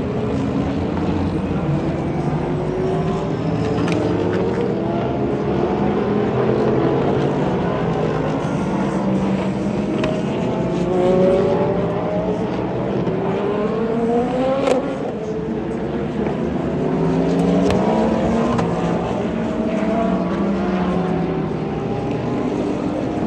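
Several IMSA sports-prototype and GT race cars running at speed, their engine notes overlapping and rising in pitch again and again as they accelerate and shift up through the gears. A sharp crack about fifteen seconds in.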